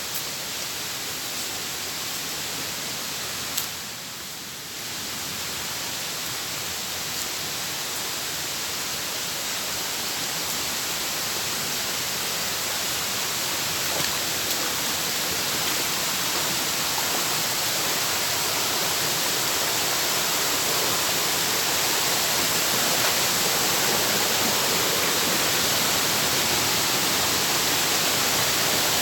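Steady rushing of river water or a waterfall, an even hiss with no distinct events, growing gradually louder.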